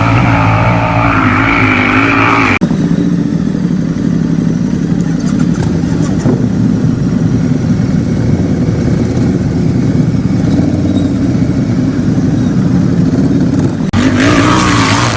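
Engine sound effect running loudly, its pitch wavering up and down at first, switching abruptly about two and a half seconds in to a steadier, lower run, then cutting back to the wavering sound near the end.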